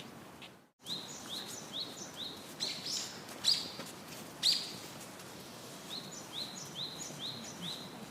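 A bird calling in a run of short, evenly repeated high chirps, about three a second, over a steady outdoor hiss, with a few louder calls in the middle. The sound drops out briefly just under a second in.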